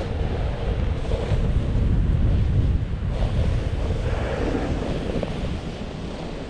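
Wind buffeting the microphone while moving over snow, a rough, low rushing that grows louder in the middle and eases off near the end.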